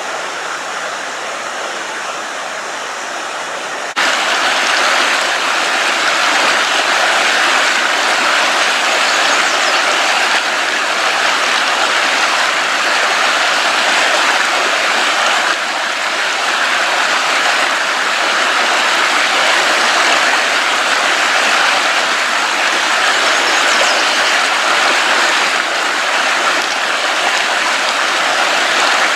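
Creek water rushing steadily, getting louder about four seconds in.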